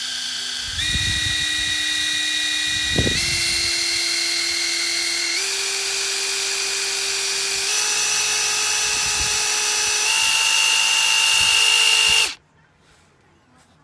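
Metabo cordless impact driver's motor running free with no load, stepping up in pitch five times as it is switched up through its speed settings, then cutting off suddenly near the end. A few faint knocks of handling come between the steps.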